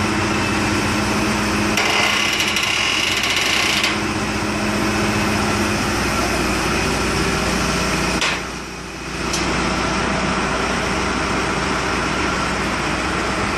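Backhoe loader's diesel engine running steadily while it holds a suspended load, with a high-pitched whine for about two seconds near the start. The engine sound drops away briefly about eight and a half seconds in.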